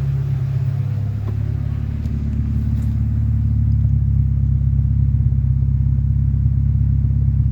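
Freshly rebuilt Honda H22A 2.2-litre DOHC four-cylinder engine running steadily at idle on its second start after the rebuild, a steady low hum that grows slightly louder about three and a half seconds in.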